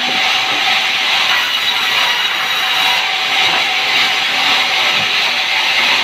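Sawmill band saw cutting a length of sengon (Falcataria) timber, giving a steady, loud, high rushing noise as the blade runs through the wood.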